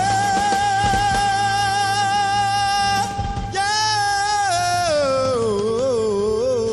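Rock band playing live while a male lead singer belts a long held high note, then after a brief break holds another note that slides down in pitch and ends with a wide vibrato.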